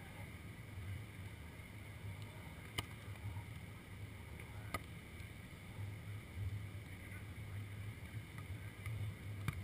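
Wind buffeting an action camera's microphone, a steady low rumble, with a few faint sharp clicks.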